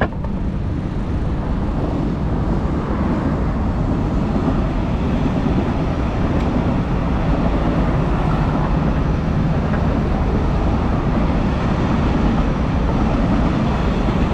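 Steady rumble of wind and road noise on a GoPro's microphone while riding a bicycle along a road.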